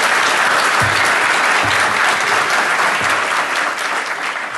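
An audience applauding at the end of a talk: a dense patter of many hands clapping, beginning to die down near the end.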